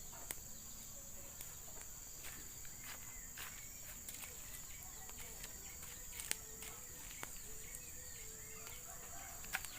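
Insects chirring in one steady, high-pitched drone, with a few sharp clicks or knocks, the loudest about six seconds in and near the end.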